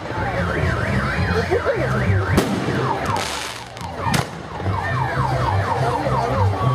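Car alarm sounding, first a fast up-and-down warble, then a run of quick repeated whistling sweeps. Two sharp firework bangs come about two and four seconds in.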